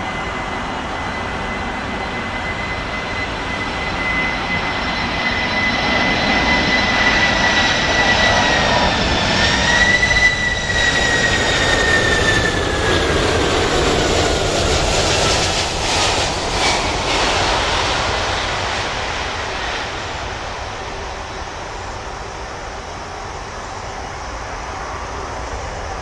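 Boeing 747-400F freighter's four turbofan engines on low final approach: a steady high whine over a broad rumble that grows louder as the jet comes in, then the whine drops in pitch and the sound fades as it passes by.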